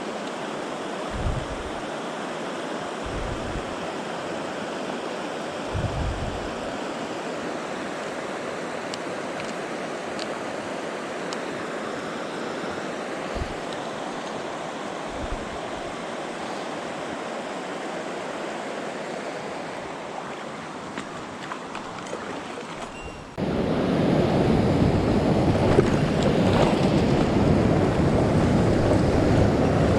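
Steady rushing water of a mountain trout stream, with a few low knocks in the first part; about 23 s in it suddenly becomes louder and fuller.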